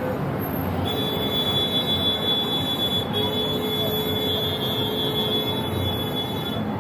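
Downtown street ambience: steady traffic noise, with a thin steady whine from about a second in until near the end.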